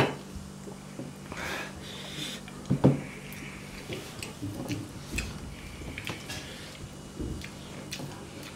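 Close-up eating sounds: wet chewing and mouth smacks with scattered small clicks as fingers pick at sticky dhindo and meat on a plate, and one brief low grunt-like vocal sound about three seconds in.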